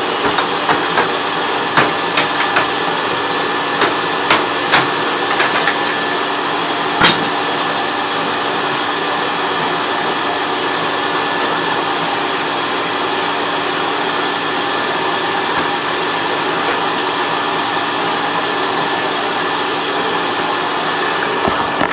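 A vacuum and a cordless work fan on high speed running with a steady whir, with a string of sharp knocks over the first seven seconds, the loudest about seven seconds in.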